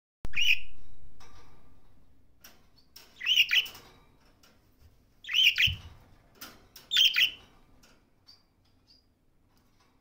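Budgerigar chirping: a short chirp right at the start, then three quick clusters of chirps about two seconds apart, dying away after about eight seconds. A soft thud sounds in the middle of the third cluster.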